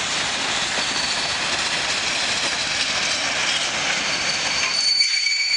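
Open-top freight wagons rolling past close by, a steady rush of wheel and rail noise. Near the end the low rumble drops away and a high, thin wheel squeal stands out.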